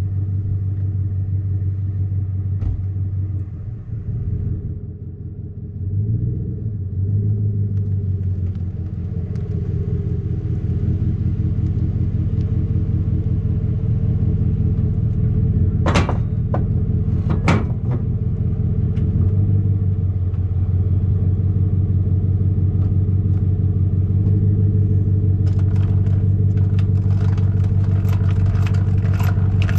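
An engine running steadily, with two sharp knocks a second and a half apart about halfway through.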